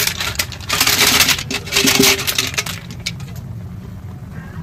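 Rapid clicks and clatter with rustling, thinning out and stopping about three and a half seconds in, over a steady low hum.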